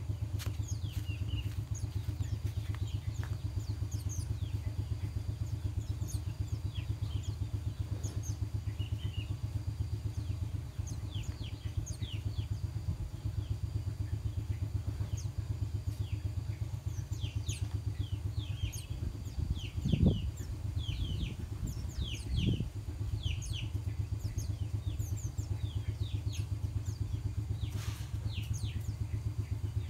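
Steady, fast-pulsing low drone like a small motor idling, with small birds chirping over it in many short, high, downward-sliding calls. Two dull thumps come about two-thirds of the way through.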